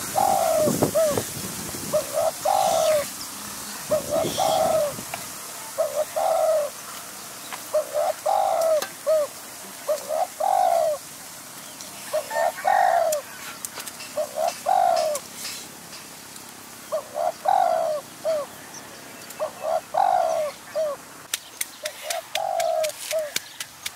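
A dove cooing over and over, one short call about every two seconds. There are a few dull knocks in the first few seconds, and near the end quick sharp taps of a stone pestle pounding in a mortar.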